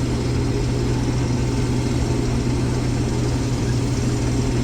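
Combine harvester running steadily under load while harvesting soybeans: an even engine drone with a strong low hum.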